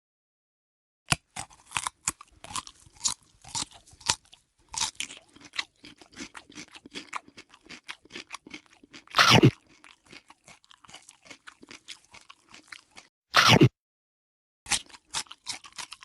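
Close-miked chewing of crunchy food: rapid, irregular crunches, broken by two much louder crunching bites, one about halfway and one near the end. Short silent pauses fall before and after the second bite.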